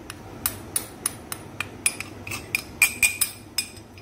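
Metal spoon knocking and scraping inside a small glass bowl, about a dozen sharp ringing clinks, roughly three a second, as custard powder is tapped out of it.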